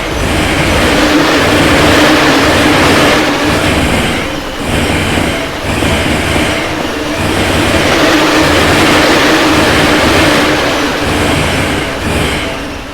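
A train passing through a level crossing close by: a loud rush of wheels and cars that dips briefly several times as the cars go by.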